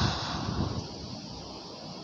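A metal ladle stirring rice through the liquid in a cooking pot: a noisy swish in the first second, then a steady low hiss.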